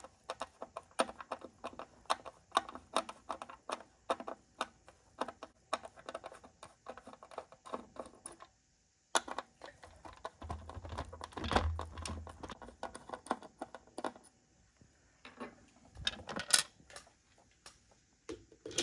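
Small screwdriver turning screws out of a hard plastic display base, making quick, irregular clicks and small knocks, with a brief break about halfway.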